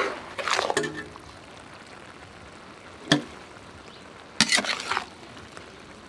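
Metal utensils scraping and tossing a vegetable stir-fry in a steel wok over a low steady sizzle, in two short spells near the start and about four and a half seconds in. A ringing clink of metal on the wok comes about a second in and a single clank about three seconds in.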